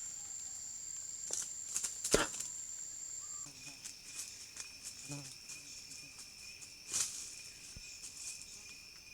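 Rainforest insects buzzing in steady high-pitched tones. About three and a half seconds in, one very high tone stops and a lower pair of tones takes over. A few faint clicks are scattered through.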